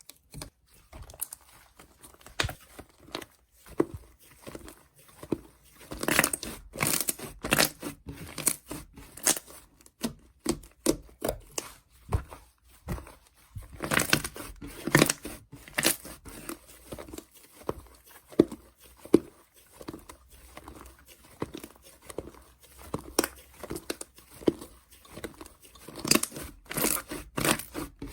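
Slime being squeezed, stretched and pressed by hand, giving an irregular run of sticky crackles and small pops, busier in stretches.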